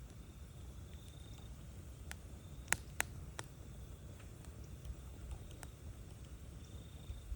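Wood campfire crackling: scattered sharp pops, the two loudest close together a little under halfway through, over a low, steady rumble.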